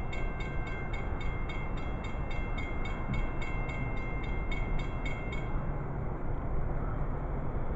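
Railroad grade-crossing bell ringing rapidly, about three strokes a second, then stopping about five and a half seconds in. A steady low rumble runs underneath.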